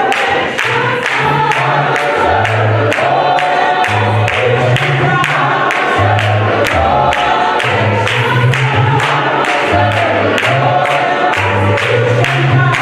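Gospel choir singing over a band, with a steady drum beat and a bass line moving between notes.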